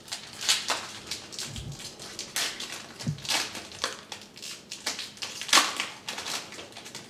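Foil wrapper of a trading-card pack being torn open and crinkled by hand, in a series of irregular sharp crackles, with a couple of dull low thumps.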